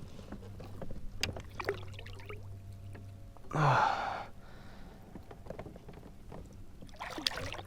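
Small knocks and handling noises on a kayak, with a short breathy burst about halfway through and a few rustling splashes near the end, over a steady low hum.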